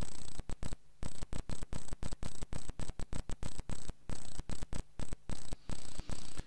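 Electrical hum and hiss on the microphone feed, cutting in and out abruptly several times a second in an irregular stutter: a fault or chattering gate in the audio chain.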